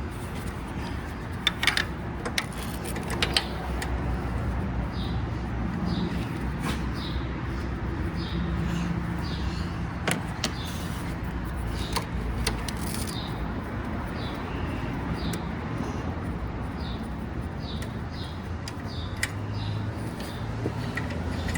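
Hand socket ratchet working an alternator mounting bolt loose: a few sharp metal knocks, then repeated short clicking strokes over a steady low background rumble.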